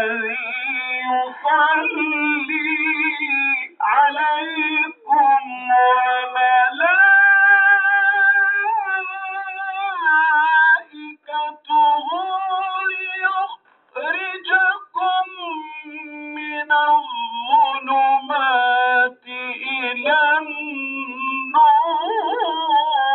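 A voice singing an Islamic religious chant in a melismatic style, with long wavering ornamented notes and a few short breaks.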